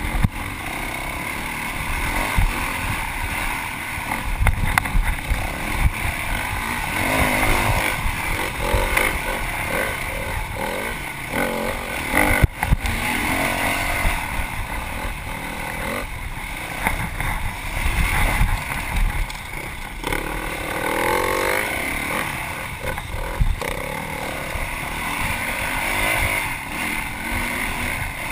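Yamaha WR450F's single-cylinder four-stroke engine revving up and down as the dirt bike is raced off-road, with a sharp knock about twelve seconds in.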